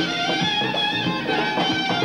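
Tunisian folk-style ensemble playing an instrumental passage: a long wooden wind instrument plays a held, wavering melody over strings and a steady beat of hand-drum strokes.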